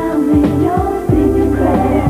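Upbeat 1990s R&B pop song: women's voices holding and bending sung notes over a bass line and a steady kick drum beating about twice a second.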